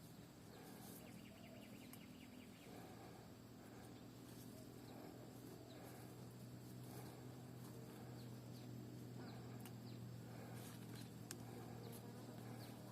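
Faint, steady low buzz of an insect, with a few faint ticks and rustles.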